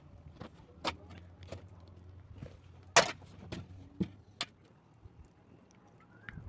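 A series of short knocks and clicks at uneven intervals, the loudest a sharp knock about three seconds in, with a faint low hum in the background for the first few seconds.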